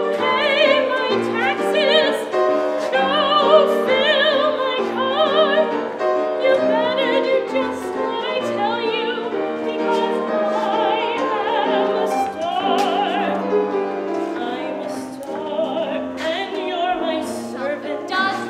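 A woman singing a show tune with strong vibrato, in an operatic style, accompanied by piano.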